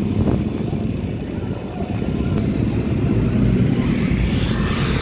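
Steady engine and road noise of a ride through busy street traffic, with music coming in and growing louder near the end.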